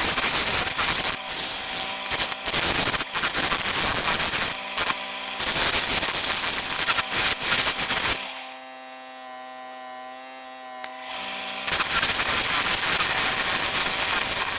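Wood lathe running with a steady motor hum while a turning tool cuts the spinning wood with a loud rough noise. About eight seconds in the cutting stops for a few seconds, leaving only the motor hum, then starts again.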